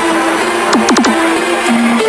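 Electronic background music with held synth notes and a few quick falling sweeps about a second in.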